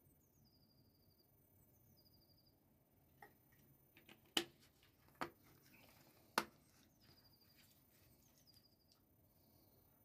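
Faint songs of a small bird, four times: each a short high phrase that slides down into a rapid trill. In the middle come a few sharp clicks, three of them loud and about a second apart.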